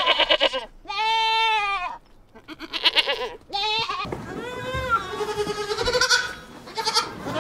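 Goats bleating: a run of wavering calls one after another, at differing pitches from more than one goat, with calls overlapping from about four to six and a half seconds in.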